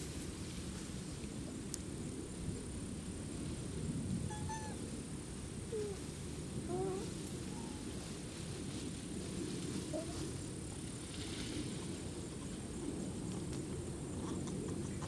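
A few faint, short pitched coo calls from macaques, scattered between about four and ten seconds in, over a steady low outdoor rumble.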